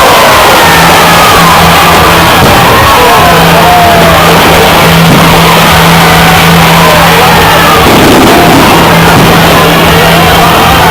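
Temple-procession fireworks going off without a break: a dense crackling din laced with short whistling glides, loud enough to keep the recording at its ceiling, with a steady low drone beneath.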